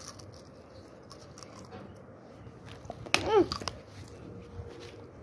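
Faint crunching of chips being chewed, then one short, loud, pitched cry about three seconds in.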